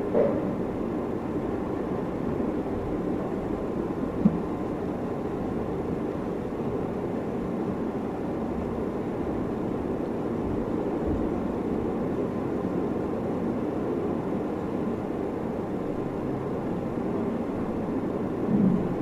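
Steady low background rumble with no clear rhythm. A soft knock comes about four seconds in and another near the end.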